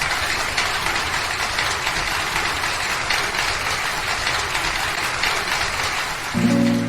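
Audience applauding, a dense steady crackle of many hands clapping. Near the end an acoustic guitar starts strumming chords.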